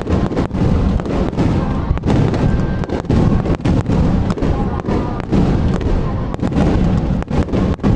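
Aerial fireworks bursting in a rapid, continuous barrage of many bangs in quick succession.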